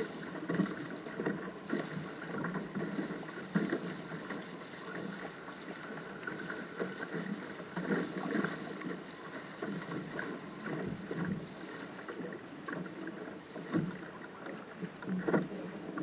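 Water rushing and splashing along the hull of a small sailing dinghy under way, with irregular slaps of waves against the bow.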